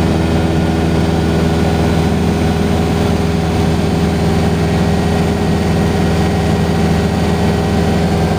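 Cessna's single piston engine and propeller droning steadily in level flight, heard from inside the cabin.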